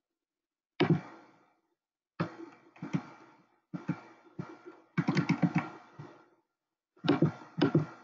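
An irregular series of sharp knocks and taps, each ringing out briefly, with a quick run of strikes about five seconds in.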